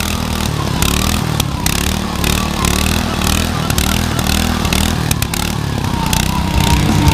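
Post-hole auger's small engine running under load as the spiral bit bores into the soil, its pitch wavering up and down, with scattered clicks.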